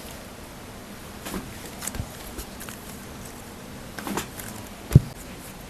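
A few scattered soft knocks and rustles from bodies and hands moving on a chiropractic treatment table, with one sharp thump about five seconds in.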